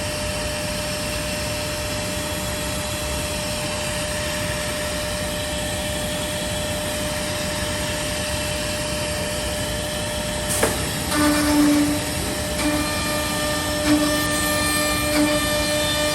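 Horizontal CNC drilling-milling machine's spindle running steadily with a constant hum. About ten seconds in there is a sharp knock, then a buzzing tone that starts and stops as the bit cuts into the panel edge in repeated passes.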